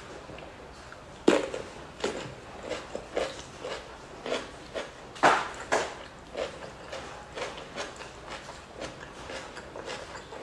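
Raw cucumber crunching and being chewed close to a microphone: a loud crisp bite about a second in, then steady wet chewing about twice a second, with two more loud crunches a little past five seconds in.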